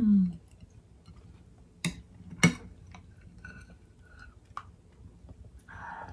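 A metal serving spoon clinks sharply twice against a glass bowl about two seconds in, half a second apart, with faint chewing and small ticks of cutlery around it.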